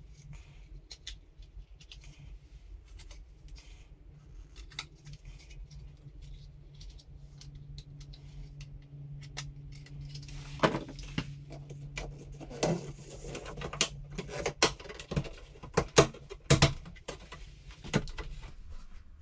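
Small clicks, taps and scrapes of hands working plastic mounting straps and a knife, growing denser from about halfway, with sharper knocks near the end as the plastic washer outlet box is handled in the wall opening. A low steady hum sits underneath for the first two-thirds.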